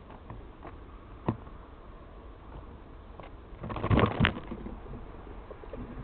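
A squirrel scrambling over a seed-filled tree stump: scattered light clicks, one sharper click a little over a second in, and a short, loud burst of scratching and knocks about four seconds in.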